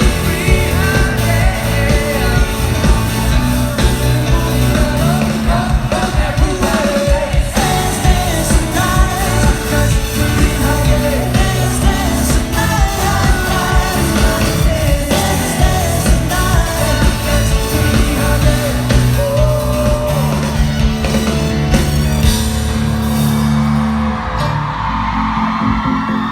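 Live pop-rock band performance: a lead vocal sings over guitars, bass and drums. Near the end the vocal drops away while the band holds a sustained chord.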